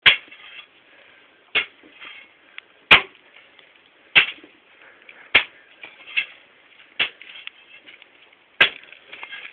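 A series of sharp knocks, about eight of them, spaced roughly a second or a second and a half apart, each with a short ringing tail.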